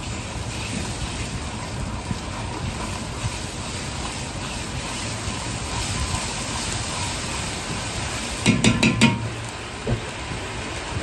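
Red chili bean paste frying in oil in a large wok, with a steady sizzle and the scrape of a metal ladle stirring it. About eight and a half seconds in there is a short burst of sharp clatter and louder sizzle, and steam then billows from the wok.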